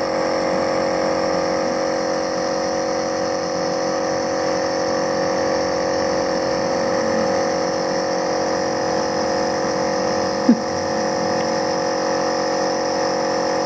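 Electric compressor nebulizer machine running with a steady hum, pushing air through the tubing to turn the liquid medicine into mist for the baby's mask. One short click about ten and a half seconds in.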